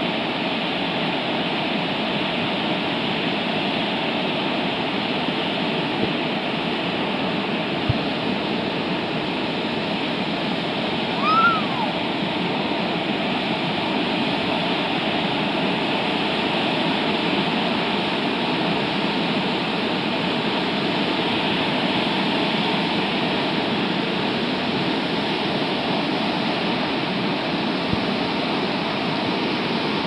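Steady roar of Sogi Falls, the Sendai River pouring over wide rock ledges and churning through rapids. A single brief chirp-like call rises and falls about a third of the way in.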